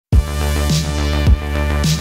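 Background music starting abruptly: a steady beat of kick drum alternating with a clap, about two beats a second, over sustained synth chords and bass.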